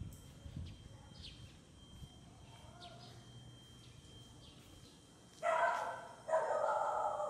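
A dog barking twice near the end, each bark drawn out to nearly a second, after a few faint bird chirps.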